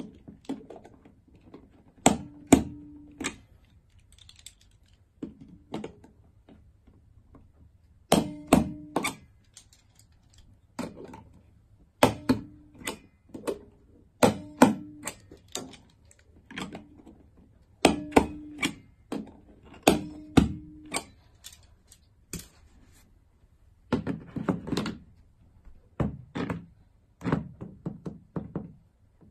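Small handheld stapler driving staples through a plastic wall mount into a wallpapered wall: a long series of sharp clacks, often two or three in quick succession, some followed by a brief ringing tone.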